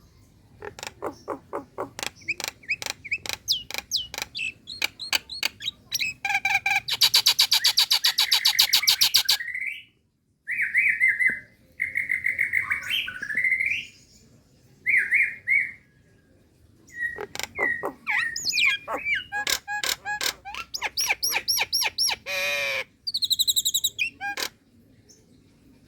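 Female Nias hill myna calling to a male: runs of sharp clicks and chuckling notes, a harsh rattling stretch, then clear rising and falling whistles. There is a brief break about ten seconds in, and the calls stop shortly before the end.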